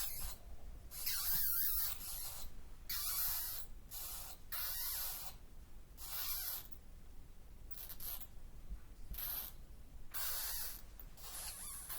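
Bats in a cave: a series of short, high, hissy rasping calls, about one every second, uneven in length and loudness.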